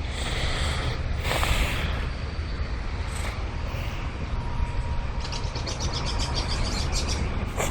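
Steady rushing of a flood-swollen creek over a low rumble. A rapid high chirping trill of a bird comes in about five seconds in.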